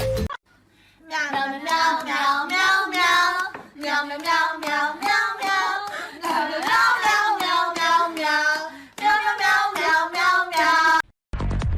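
A high voice singing a tune, over a steady beat of sharp claps or taps; it starts about a second in and cuts off just before the end.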